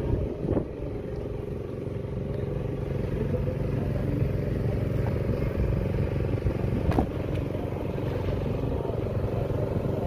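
An engine running steadily, with two sharp knocks, about half a second in and about seven seconds in.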